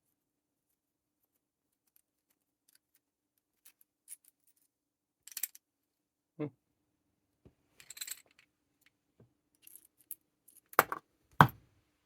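Small metallic clicks, scrapes and clinks from a disc-detainer padlock and a small tool being handled while a screw is worked out of the lock. They start a few seconds in and are scattered, with two sharp knocks, the loudest sounds, near the end.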